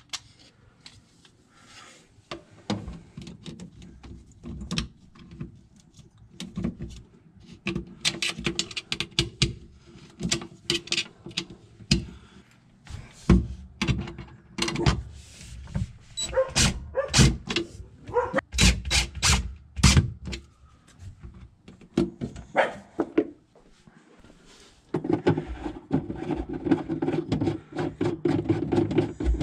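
Plastic refrigerator shelf supports and interior panels knocking and clicking as they are fitted back in place, mixed with a DeWalt cordless driver running in short spells to drive the screws home; a steadier spell of motor running comes near the end.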